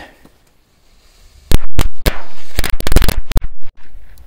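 A machine-gun firecracker string going off: a rapid, uneven run of about ten loud bangs over some two seconds, starting about a second and a half in.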